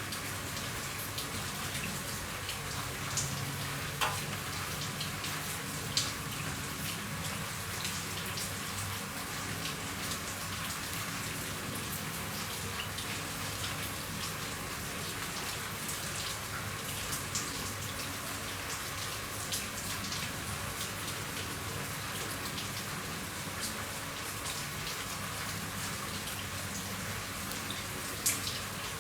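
Steady rain on a roof: an even hiss with scattered sharp drop taps, a few louder ones standing out, twice early on and once near the end.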